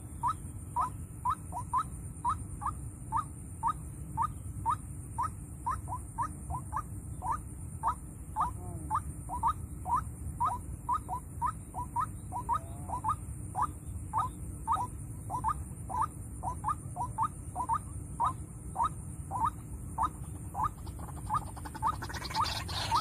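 White-breasted waterhen calling: a long, even run of short rising notes, about three a second, over a steady low rumble. Another sound, likely music, comes in near the end.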